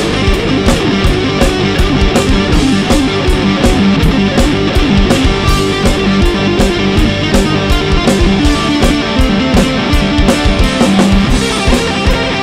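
Instrumental break in a song: guitar over drums keeping a steady beat.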